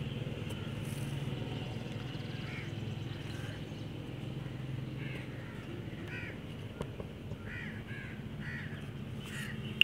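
Birds calling outside, a run of short caw-like calls starting a couple of seconds in, over a steady low hum.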